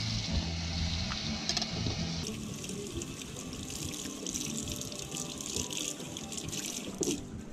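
Water from a faucet running into a small stainless steel sink as a fillet knife is rinsed under the stream. The flow starts about two seconds in and then runs steadily.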